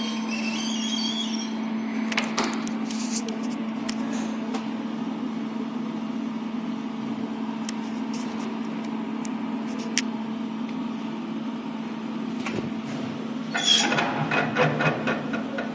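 Elevator drive unit running with a steady hum, broken by scattered sharp clicks and a short burst of rattling near the end. This is the strange noise under investigation.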